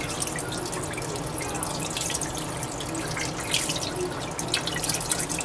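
Kitchen tap running over a dressed pheasant as it is rinsed by hand, water splashing off the bird into a pot of water in a stainless steel sink, with irregular small splashes over a steady stream.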